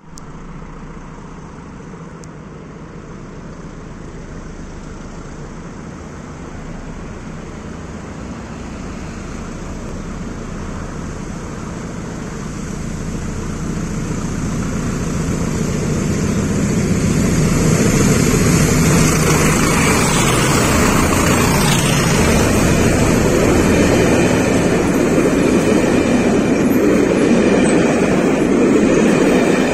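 Class 20 diesel locomotives with English Electric V8 engines, heard approaching as a steady engine noise that grows louder over about fifteen seconds. They pass with a falling pitch about two-thirds of the way in, and the excursion coaches then run past with a steady rumble of wheels on rail.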